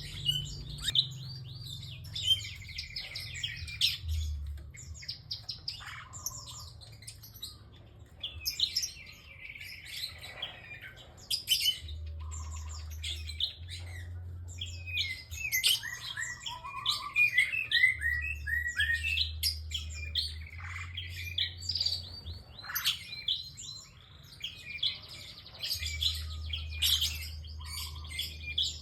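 A single prenjak (prinia) singing busily: rapid high-pitched chirps and trills in bursts of a few seconds, with short lulls between them.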